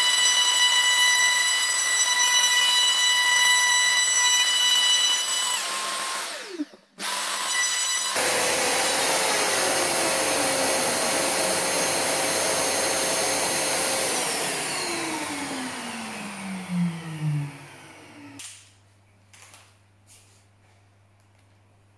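Makita RTC0700C compact router running at full speed with a high whine, routing the recess for an insert plate into OSB. It dips and restarts briefly about six to eight seconds in. It is switched off about two-thirds of the way through and winds down over a few seconds, falling in pitch, followed by a couple of light knocks.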